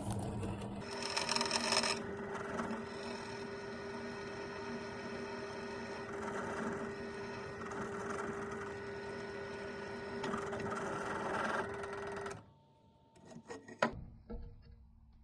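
Electric drill motor running at a steady speed while drilling a hole in hardened steel, then stopping suddenly about twelve seconds in, followed by a few light knocks.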